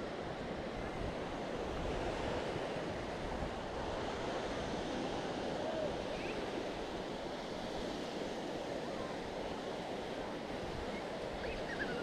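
Sea waves washing onto the beach, a steady rush of surf, with some wind buffeting the microphone.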